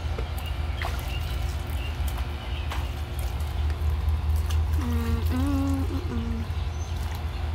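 Small splashes and trickling water as a toddler wades and dips his hands in a shallow plastic kiddie pool, over a steady low rumble. About five seconds in, a brief wavering vocal sound rises over it.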